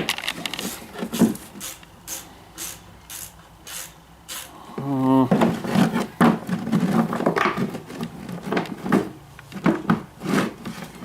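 A used motorcycle roller chain being handled and flexed in the hands while it is checked for wear, its links and pins giving light clicks. The clicks come about twice a second at first; after about five seconds they give way to rubbing and scraping.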